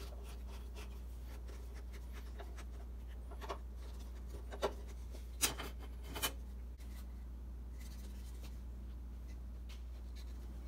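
A handful of short scratching strokes on the wooden saw handle, the loudest about five and a half seconds in, over a steady low hum.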